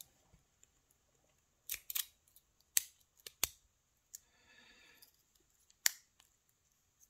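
Small metallic clicks and taps from a brass lock cylinder and its key being handled and turned, a handful of sharp separate clicks, with a short scraping sound about halfway through.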